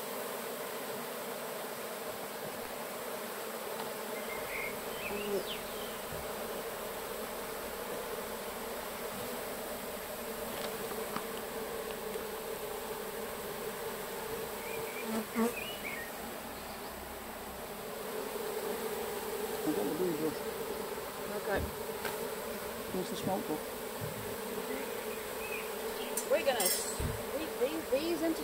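A mass of honeybees buzzing in a steady hum as their comb is cut out and handled during a colony transfer. A few sharp knocks sound from the handling, mostly near the end.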